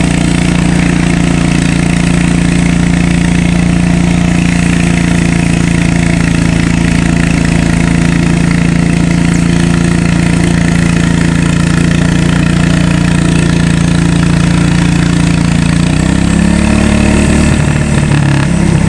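Garden pulling tractor's engine running at a steady, loud pitch under load as it drags a weight-transfer sled. About three seconds before the end the note wavers and shifts as the engine speed changes.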